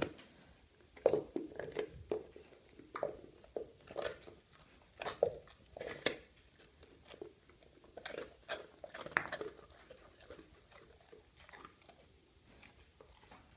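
A cane corso biting and chewing crusty white bread, with irregular crunches of the crust. The crunches come thick for most of the time and grow fainter and sparser in the last few seconds.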